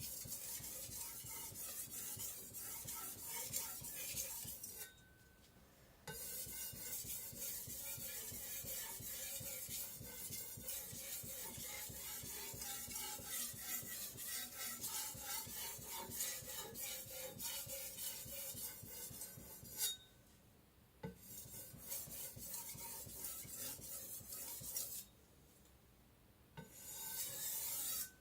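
IKEA Vardagen Chinese cleaver's X50CrMoV15 stainless edge stroked back and forth across a Naniwa Aotoshi 'green brick' whetstone with no pressure: a steady run of rasping scrapes. The scraping stops briefly about 5 seconds in, again at about 20 seconds, and once more at about 25 seconds.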